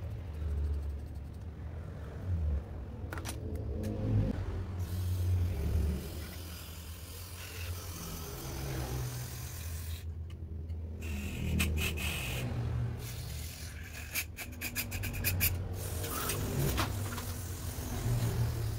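Aerosol carburetor cleaner sprayed through a straw into a disassembled scooter carburetor, in several short hissing bursts mostly in the second half, with the carburetor's metal parts scraped and handled. A low rumble runs underneath throughout.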